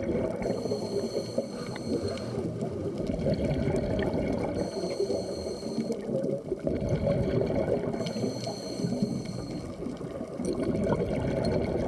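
Muffled underwater noise from a scuba dive, with a diver's regulator breathing: a hissing inhale about every four seconds and a bubbling, crackling rush of exhaled bubbles between.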